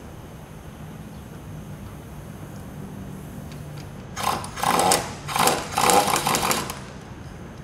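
Handheld power driver running in the bolts that hold a hydraulic shear's blade, in a quick series of short bursts starting about four seconds in, over a steady low hum.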